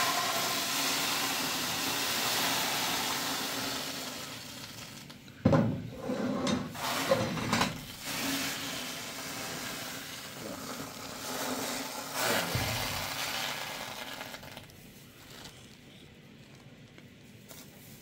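Batter poured into a hot pan on a gas stove sizzles loudly at once, the sizzle fading over the next few seconds. Metal pots clatter and knock about five and a half seconds in, and a second, weaker sizzle comes around twelve seconds in.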